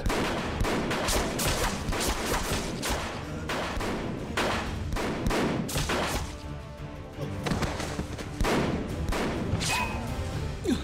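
Dramatic background music with a rapid run of sharp hits and impacts over it, the sound effects of a fight. The hits ease off briefly about seven seconds in, then pick up again.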